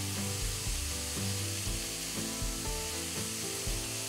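Mushrooms frying in sesame oil in a hot wok on high flame, a steady sizzle. Background music with a run of held notes plays over it.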